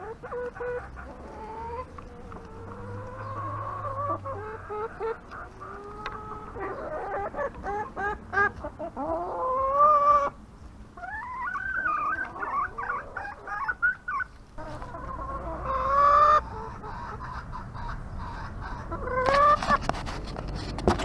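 Garden chickens clucking and calling, several birds overlapping, with louder drawn-out calls every few seconds.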